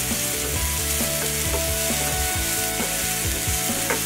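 Chopped vegetables (onion, capsicum, green peas and tomato) sizzling steadily in oil in a nonstick frying pan on high flame, stirred and turned with a wooden spatula.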